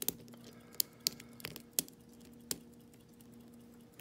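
A pick working the pins inside a pin-tumbler lock cylinder during single-pin picking: a handful of sharp metallic clicks in the first two and a half seconds, over a faint steady hum.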